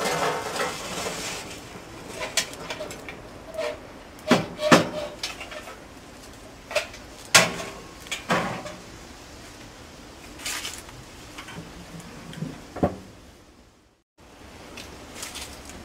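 Metal clanks and scrapes of a charcoal barrel grill being tended: grate and lid parts knocked about over the burning coals, with several sharp clanks, the loudest a few seconds in.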